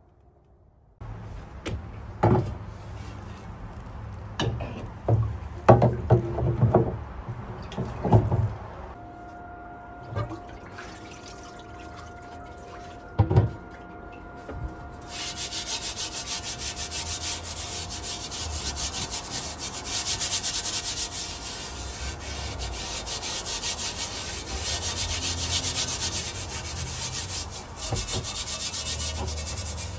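Steel wool scrubbing the wet cast iron Griswold griddle, a steady scraping that strips off lye-loosened old seasoning and rust; it starts about halfway through. Before it come several loud knocks and clunks of the heavy griddle being handled.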